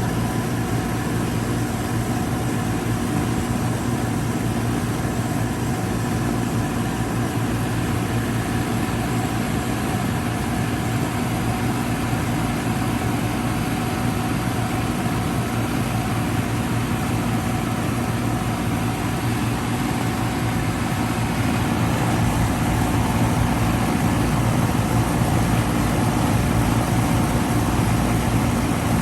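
1994 Goodman CK36 3-ton central air conditioner condensing unit running steadily: a constant low hum with fan noise, growing slightly louder near the end.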